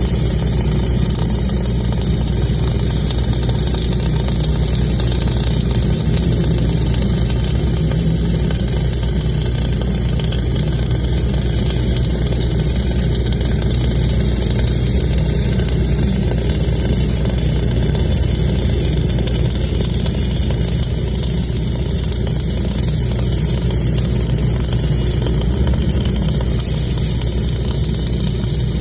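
An engine running steadily at an even speed, with no change throughout.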